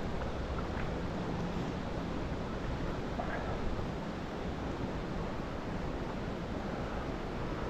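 Steady rush of river current, with wind rumbling on the microphone.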